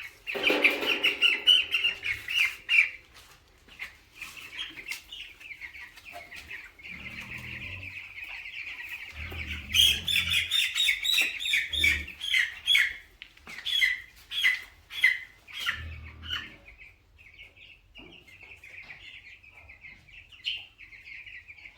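A flock of young broiler chicks peeping continuously, louder in two spells, at the start and about ten seconds in, as birds are handled for weighing. A few dull low thumps come in between.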